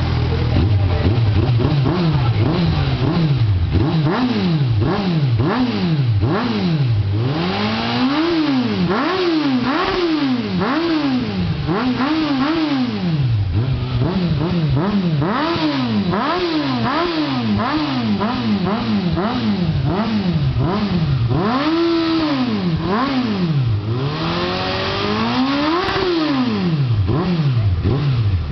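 Suzuki Bandit 650's inline-four engine through a Roncar Coyote TRS two-way sport exhaust tip, revved again and again in quick throttle blips, about one a second, the pitch rising and falling each time, with a few bigger revs among them. It idles for a moment before the first blip.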